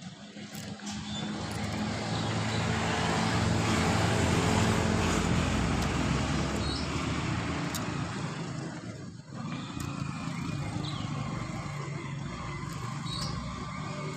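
A motor vehicle passing by, its engine and road noise swelling to its loudest about four to five seconds in and then fading, followed by a second, steadier engine sound from about nine seconds in. A few faint short high chirps sound over it.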